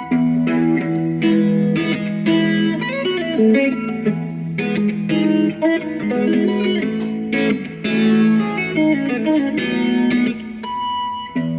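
Instrumental guitar music: a plucked guitar melody of quick notes over sustained low notes.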